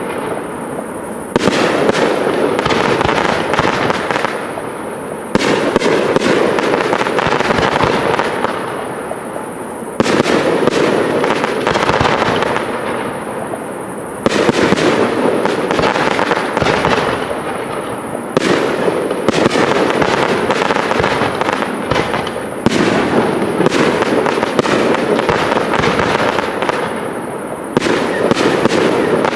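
Aerial fireworks shells bursting about every four seconds, each burst setting off a dense crackle of many small pops that slowly fades before the next one.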